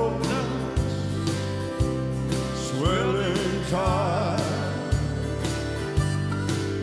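Country gospel song played live on piano with a band and drums keeping a steady beat about once a second, and a man singing with vibrato.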